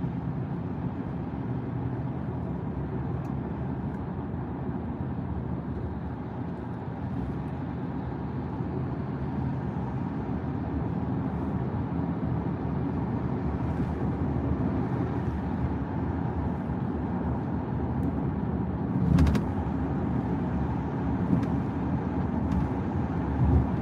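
Steady low rumble of road and engine noise inside a moving car's cabin, with one short louder bump about nineteen seconds in.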